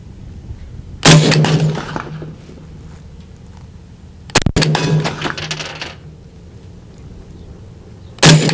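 Three rifle shots from a short-barreled AR-style rifle firing 5.56 green-tip ammunition, about three seconds apart, each sharp crack followed by a ringing tail that dies away over about a second.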